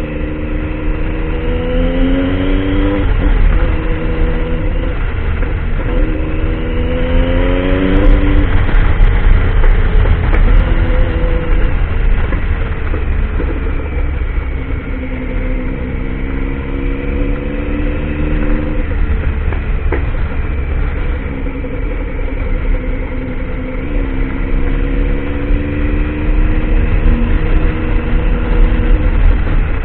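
Triumph Tiger motorcycle engine accelerating in pulls, its pitch climbing and then dropping at each gear change, about 3 s and 8 s in. It runs lower and steadier for a few seconds, then climbs again twice more, over a constant low rumble.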